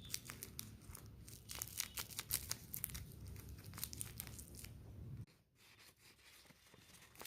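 Blind-box packaging being handled and torn open: dense, irregular crinkling and crackling with sharp snaps, which stops abruptly about five seconds in, leaving a few faint crinkles.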